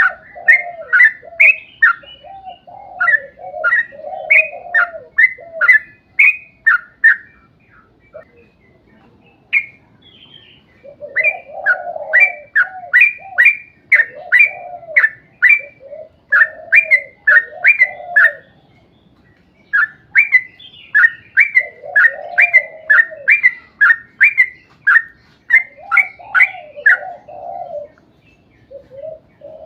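Yellow-vented bulbul (trucukan) singing long, bubbly phrases: quick chirped notes over lower warbled notes, in runs broken by short pauses about 7, 18 and 27 seconds in.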